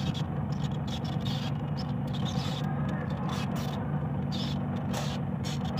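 A steady low motor hum, like an engine running nearby, with short rustles and scrapes of orchid stems and roots being handled and pulled apart.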